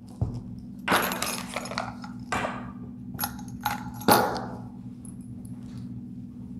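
Clicks, rattles and scrapes of a hand-operated pressure calibrator pump and its metal fittings being handled, as its selector is pushed in to the pressure setting. There is a longer rattle about a second in and a sharp click about four seconds in.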